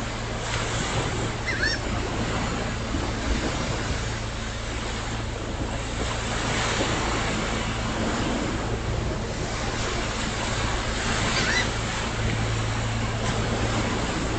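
Surf washing onto a beach: an even, steady wash of breaking waves with a constant low hum underneath. Two faint short high chirps come about a second and a half in and again near the end.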